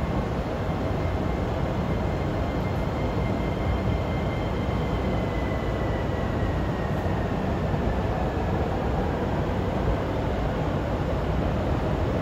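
Steady rumble of electric trains running on the tracks, with a faint high whine that slides slowly lower in the first half.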